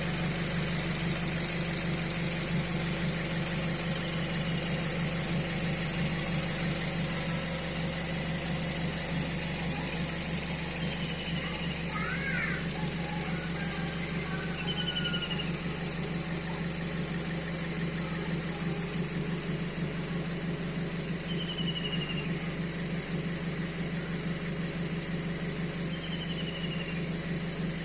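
2008 Suzuki Swift GT2's four-cylinder petrol engine idling steadily, heard close up in the open engine bay.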